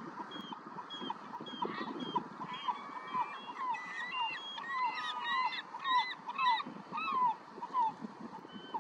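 A flock of gulls calling: many short, downward-slurred calls overlapping at different pitches, several a second, busiest in the middle.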